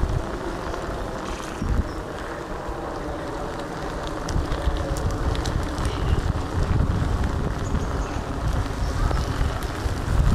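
Wind buffeting the microphone of a handheld camera, a gusty low rumble with a few faint clicks.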